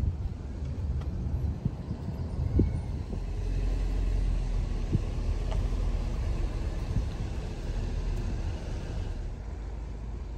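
Car driving along: a steady low rumble of engine and road noise, with a couple of light knocks in the first half.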